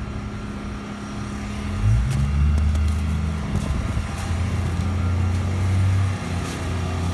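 Portable gasoline generator engine running with a steady low drone. It grows louder about two seconds in and holds there. The generator is powering the house's refrigerator and heat during a power outage.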